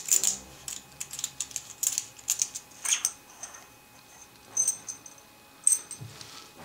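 Metal lightsaber hilt sections being handled and twisted apart: a run of small clicks and scrapes of metal parts, with a couple of short high metallic clinks about four and a half and five and a half seconds in.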